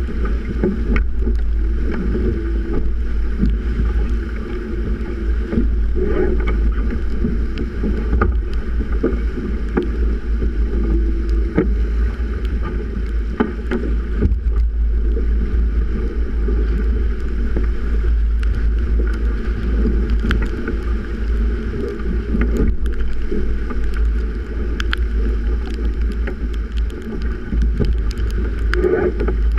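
Strong wind buffeting the microphone in a constant low rumble, with water rushing and breaking along the hull of a Melges 24 sailboat sailing hard in 30-knot-plus winds.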